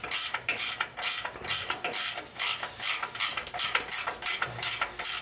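A 12 mm ratcheting wrench clicking in quick, even strokes, about three a second, as it runs a nut down onto an exhaust flange bolt.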